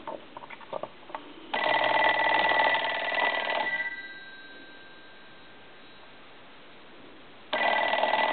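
Western Electric 5302 telephone's bell ringing twice, about two seconds each with a pause of about four seconds between, the gong tones hanging on briefly after the first ring; the bell volume is set to about medium. A few light clicks come first.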